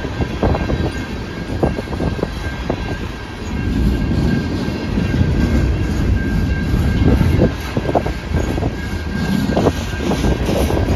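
Train rolling past close by: a continuous heavy rumble from the cars, with irregular sharp clanks and clicks from the wheels passing over the rails.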